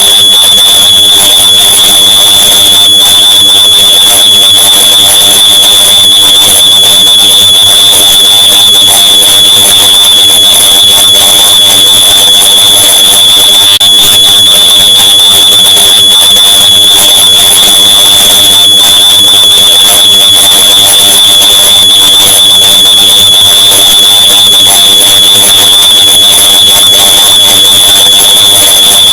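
Smoke alarm beep layered over itself countless times, fused into one continuous, very loud high-pitched tone with no gaps between beeps, over a dense wash of sound.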